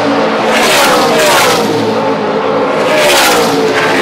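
NASCAR Truck Series race trucks' V8 engines at full throttle passing the grandstand, in two waves. The engine pitch drops as the trucks go by.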